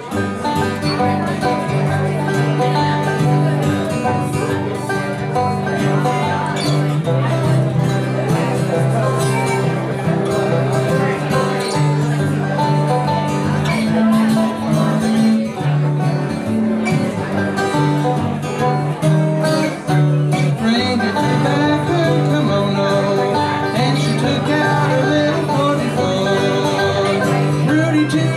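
Banjo and acoustic guitar playing a bluegrass-style tune together, with quick plucked banjo notes over a strummed guitar and its bass runs.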